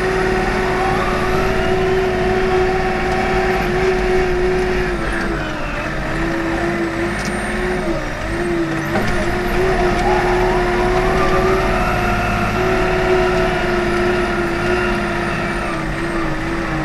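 Komatsu WA40 mini wheel loader's diesel engine running steadily while the loader pushes snow, heard from inside the cab, with a steady whining tone that dips in pitch briefly around the middle.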